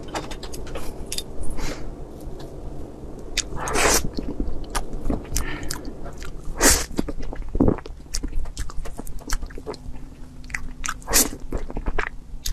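Close-miked eating of soft cream cake: a spoon scooping cream and sponge, with wet mouth clicks and chewing. Several louder short bursts stand out among the clicks.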